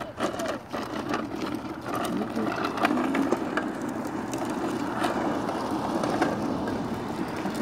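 Hard plastic wheels of a child's push toy car rolling over a concrete driveway: a steady rumble with scattered small clicks and knocks.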